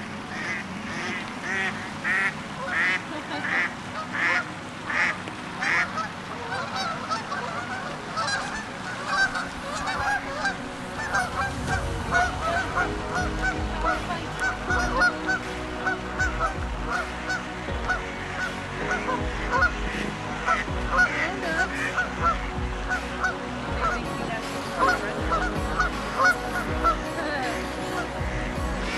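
A flock of Canada geese honking on a pond: first a run of calls about two a second, then many overlapping honks from several birds. A low rumble joins about a third of the way in.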